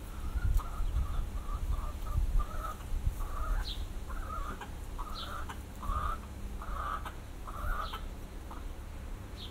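Chicken clucking over and over, about two clucks a second, growing stronger in the middle. A small bird gives a few short, high chirps, and a low wind rumble runs underneath.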